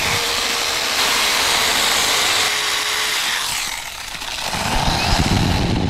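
Battery-powered saw cutting through wood: a loud steady cutting noise that dips briefly about four seconds in, then picks up again with a rougher, lower sound.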